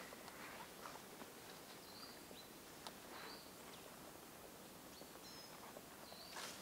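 Quiet woodland: faint footsteps rustling through fallen leaves, with several short high bird chirps.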